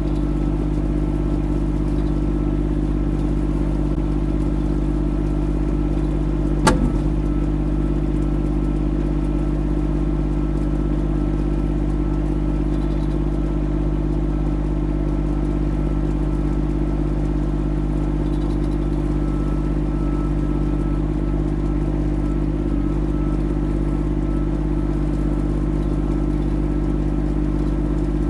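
Diesel engine of a Kymron XH20d mini excavator running steadily at a constant speed, with a single sharp knock about seven seconds in.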